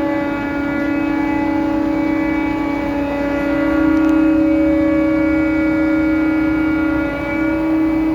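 Crane machinery running with a loud, steady drone at one held pitch, with several higher overtones above it.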